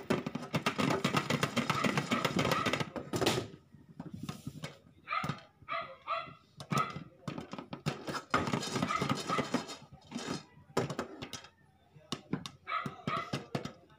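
Popcorn kernels popping in a lidded stainless steel pan. A dense crackle of pops fills the first few seconds and comes back about eight seconds in, thinning to scattered pops in between. Short pitched cries break in around the middle and near the end.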